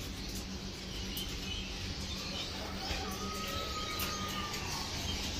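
Pet-shop room sound: caged birds chirping faintly over a steady low hum, with one thin whistled note a little over a second long about three seconds in.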